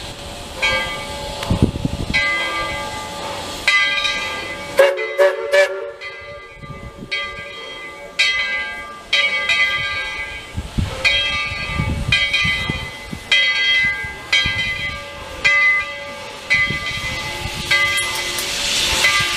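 The bell of narrow-gauge 4-6-0 steam locomotive No. 12 rings over and over, about one strike a second, as the engine moves under steam. A hiss of escaping steam grows near the end.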